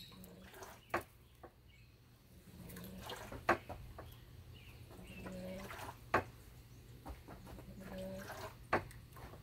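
Sharp, short movement sounds of a person performing a taekwondo poomsae, four of them about two and a half seconds apart, one with each technique.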